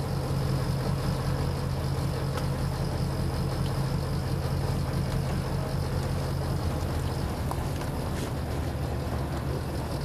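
Fishing boat's engine running steadily with a low hum that weakens about seven seconds in.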